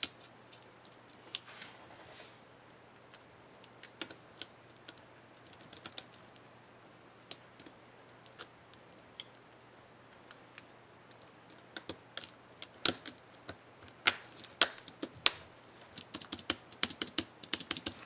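Plastic clicks and snaps of an HP Mini 5101 laptop spacebar keycap being worked off and back onto its clips and stabilizer bar, sparse at first. In the last six seconds they turn into a dense run of key-press clicks as the refitted keys are pressed.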